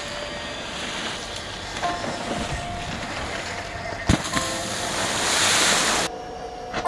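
Rushing water and spray hiss from a wakeboard carving across the water, with a sharp knock about four seconds in. The spray rises to a loud hiss and then cuts off suddenly near the end.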